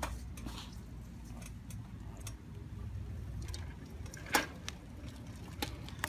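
Liberty Trike electric tricycle being pedaled along: a steady low rumble of rolling, with scattered light clicks and one sharp click about four seconds in. The freshly adjusted chain and sprockets run good and quiet, with no clickety-clack.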